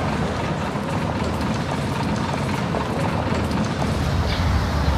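Steady low engine and road rumble inside a moving coach bus.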